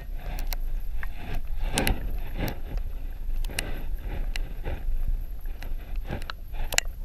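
Muffled water sloshing and scattered knocks and clicks on a camera held underwater in shallow water, over a steady low rumble.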